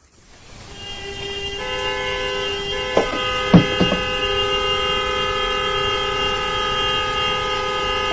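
Many vehicle horns sounding together in mourning, a long sustained chorus of steady tones. It swells in over the first second or two as more horns join, with a few short sharp sounds about three to four seconds in.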